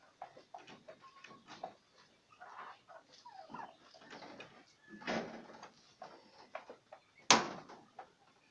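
Hand pop-rivet gun working on a metal rain gutter: small metallic clicks and scrapes, then one sharp loud snap about seven seconds in as the rivet sets and its mandrel breaks off.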